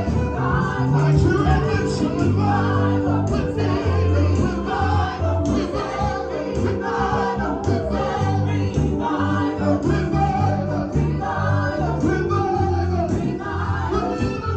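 Live gospel praise music: voices singing together over a band with a steady bass line and a regular drum beat.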